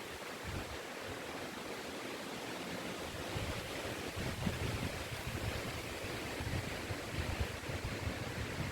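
Wind blowing through forest trees, a steady rushing with irregular gusts buffeting the microphone.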